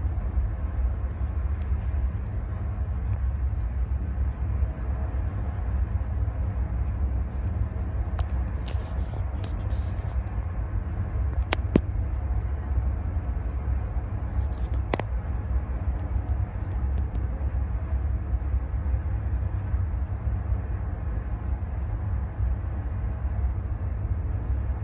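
Steady low rumble of a search-and-rescue helicopter hovering over the sea ahead of a ship, mixed with wind buffeting the microphone. Two sharp clicks come a few seconds apart near the middle.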